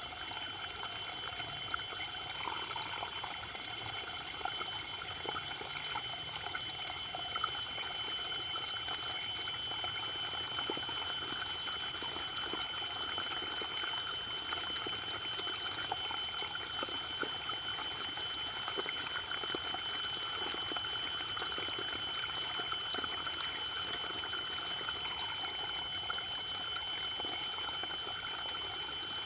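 Waterfall water falling and splashing in a steady, unbroken rush, with a faint steady high-pitched ringing running through it.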